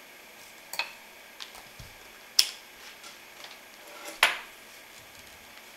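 Sharp plastic clicks and knocks as a handheld digital multimeter and its test probes are handled, pulled from the outlet and set down. There are three main clicks, the loudest about two and four seconds in, over a faint steady hiss.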